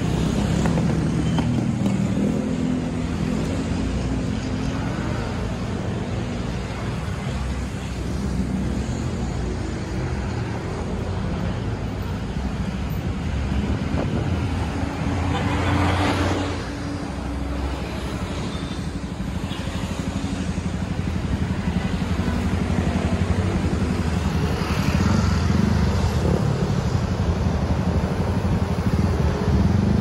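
Steady roadside traffic: motorcycles and cars passing with engines running. A bus passes close about halfway through, a swelling rush that then falls away.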